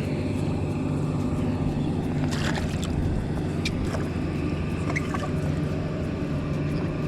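Steady engine drone, even and unbroken, with a few short faint chirps and clicks about halfway through.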